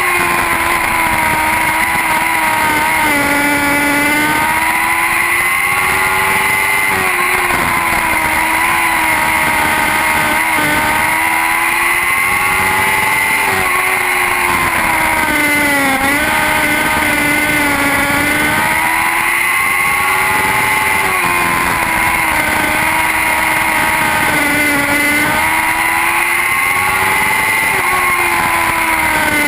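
A pack of Lightning sprint cars racing, their motorcycle-derived engines running at high revs. The engine pitch rises and falls in a repeating cycle about every five to six seconds as they lap.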